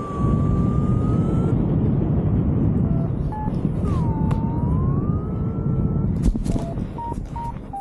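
Wind rushing over the microphone in paragliding flight. A flight variometer's electronic tone sounds twice, sliding down in pitch and back up, and a few short beeps at different pitches come about three seconds in and near the end.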